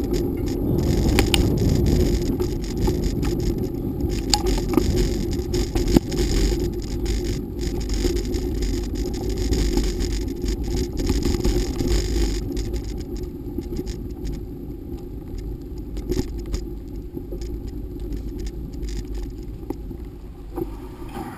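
Bicycle riding along a dirt and gravel track, heard from a camera mounted on the bike: a steady low rumble of the tyres on the rough surface, with frequent small clicks and rattles from the bike. It slowly grows quieter toward the end.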